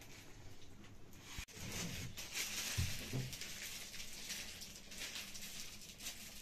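Wood fire crackling in a wood-burning stove. The crackle grows louder and brighter about a second and a half in, with a couple of soft low knocks soon after.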